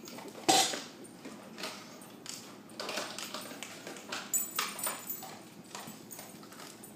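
A dog making a run of irregular clicks and taps, the loudest about half a second in.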